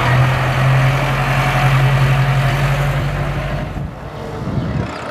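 Massey Ferguson 6616 tractor's diesel engine running close by as the tractor drives slowly past, a steady low drone. It drops away abruptly a little under four seconds in, leaving fainter engine noise.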